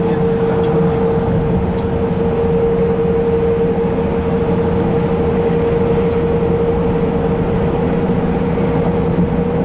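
Steady road noise inside a car's cabin at freeway speed: tyre rumble and hiss with a constant hum.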